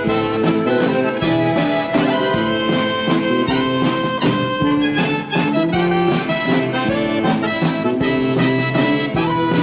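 Instrumental break of a song: a harmonica melody over strummed guitar with a steady beat.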